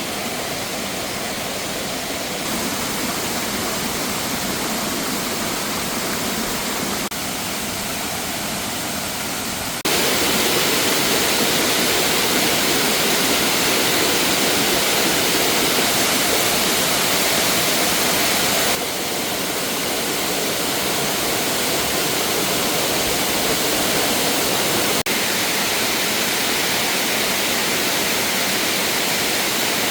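Steady rush of water, a loud even hiss that shifts level abruptly several times, jumping up about ten seconds in and dropping back a little near nineteen seconds.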